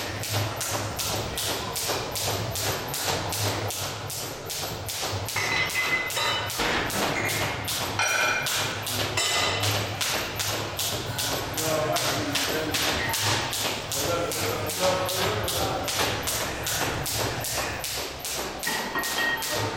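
Jump rope skipping: the rope slapping the floor and the feet landing on each jump, in a steady rhythm of about two to three taps a second.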